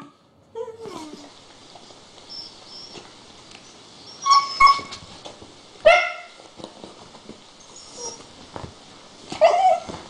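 Dogs barking and yipping in short, sharp calls: a quick pair of high yips about four seconds in, a bark near six seconds and another near the end, with a brief falling whine about a second in.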